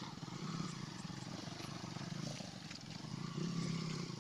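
Distant trail motorcycle engine running and revving unevenly as the bike climbs through deep mud, its pitch rising and falling, with a louder swell about three and a half seconds in.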